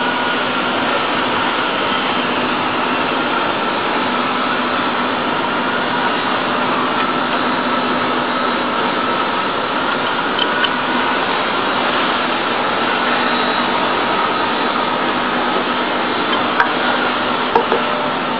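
Steady machine noise, an even rushing sound with a faint whine running through it. A few light clicks come near the end.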